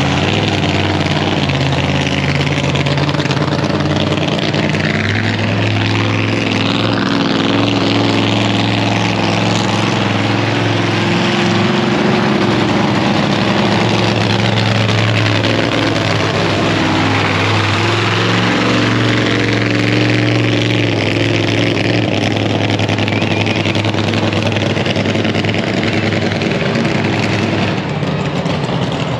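Identity Theft monster truck's engine running loud as the truck drives close by, the pitch rising and falling as it passes and revs.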